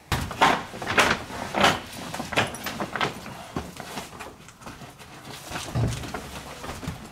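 Old pop-up camper canvas rustling and scraping as it is tugged down off the roof in a series of short pulls.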